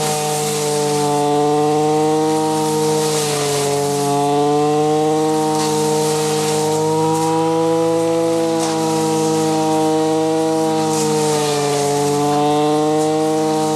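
Zenoah BCZ315 two-stroke brush cutter running at high revs with a grass blade, its engine note dipping and recovering as the blade takes the load of the grass, with a swishing of grass being cut.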